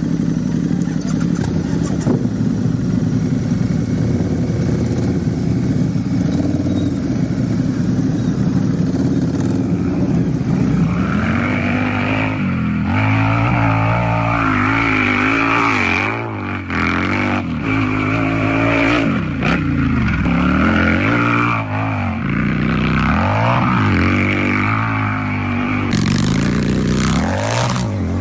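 Harley-Davidson motorcycle V-twin engine idling steadily, then revved repeatedly from about twelve seconds in, the pitch rising and falling with each blip of the throttle.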